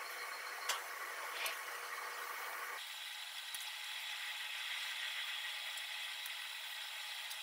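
Steady faint hiss of a frying pan of chicken and leek still sizzling, with a couple of light clicks of wooden chopsticks picking up the pieces in the first second or two.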